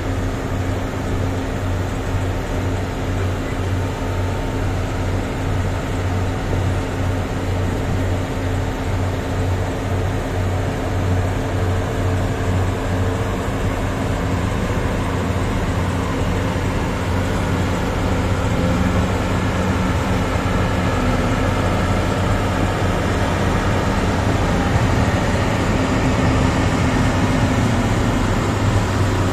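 Heavy mining machinery at work, a Komatsu PC4000 excavator loading an XCMG haul truck: a steady, deep engine drone with an even pulsing low hum, getting slightly louder near the end.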